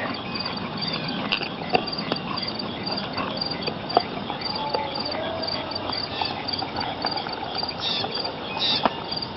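Insects chirping in a fast, even pulse, over which a dog chewing on a deer head gives a few scattered sharp clicks and cracks of teeth on bone, the loudest about four seconds in.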